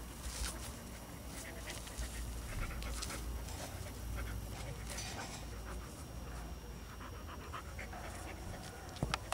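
A dog panting in quick irregular breaths while it noses a ball through the grass, with a sharp knock near the end.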